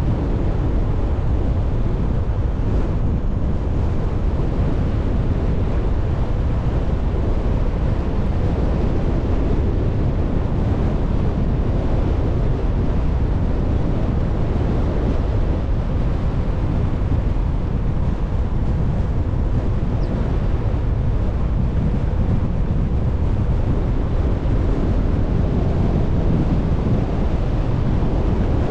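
Steady low rumble of a vehicle driving along a road: tyre and wind noise, with wind buffeting the microphone.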